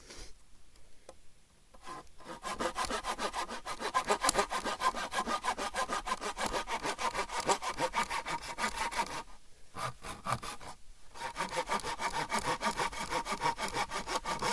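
Hand saw cutting through a log of firewood in quick, even back-and-forth rasping strokes, with a short pause partway through before the sawing resumes.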